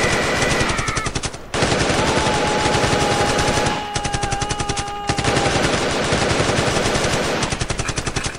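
Rapid machine-gun fire in long sustained bursts, many shots a second, breaking off briefly about a second and a half in and again around four and five seconds in. A steady held high tone runs over the firing for a few seconds in the middle.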